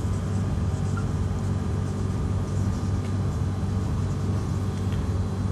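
Steady low hum of room background noise, made of a few evenly spaced low tones under a faint hiss, unchanging throughout.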